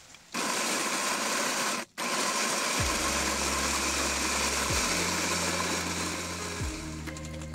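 Electric coffee grinder running with a steady whirring grind, starting abruptly and breaking off briefly, as at a cut, just before two seconds in. Background music comes in under it about three seconds in.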